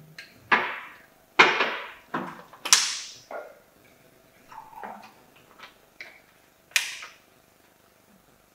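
Liquid poured from bottles into a drinking glass in several short splashing rushes, first from a glass bottle and then from a plastic water bottle, followed by a few knocks of bottles and glass being set down on a glass tabletop, the sharpest near the end.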